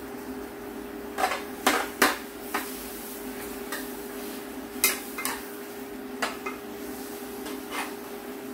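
Metal spoon scraping and knocking against a black pot while kimchi is stir-fried in it: about a dozen sharp, irregular clinks over a steady low hum.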